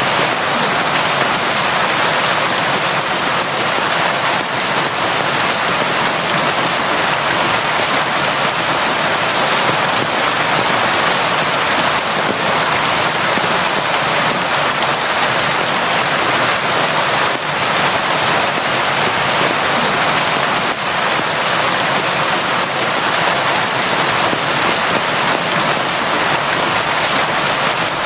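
Steady, heavy rain falling, an even hiss of dense drops without a break.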